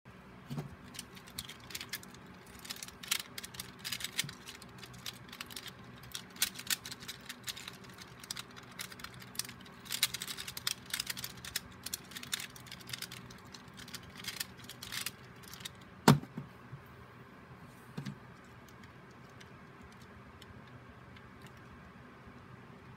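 A plastic Pyraminx puzzle twisted rapidly by hand: quick, irregular clicking and clacking of its turning layers, which stops about 15 seconds in. A single sharp knock follows about a second later, and a lighter one a couple of seconds after that.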